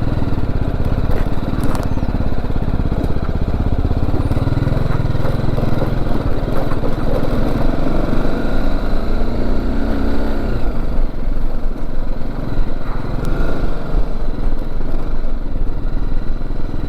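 BMW G310GS single-cylinder motorcycle engine running while riding over a rough, broken road, its note rising and falling in pitch around the middle.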